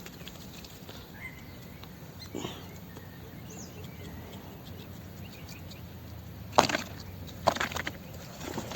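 Low steady background hum with a few faint chirps, then two sharp knocks, about two-thirds of the way in and again a second later.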